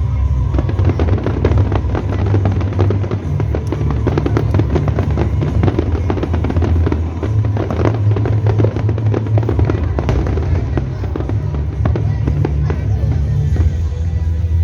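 Aerial fireworks bursting and crackling in rapid, irregular succession, over loud music with a heavy bass line.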